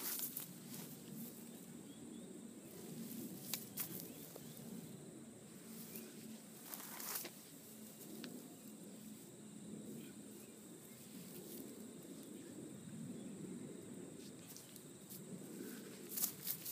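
Faint outdoor ambience with occasional brief rustles of a person moving on grass, then a few footsteps on grass close by near the end.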